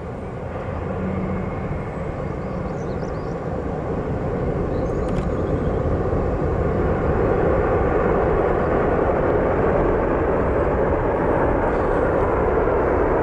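Jet noise of a Boeing 777 freighter's twin GE90 turbofans on approach to land: a broad rushing drone that grows steadily louder as the aircraft draws nearer.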